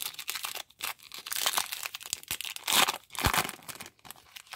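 Foil wrapper of a baseball card pack crinkling and tearing as it is pulled open by hand, in crackling bursts, with a low bump just after three seconds in.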